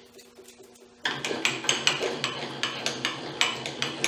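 A quick, fairly even run of light metallic clicks from the milling machine being worked by hand, about five a second, starting about a second in over a low hum.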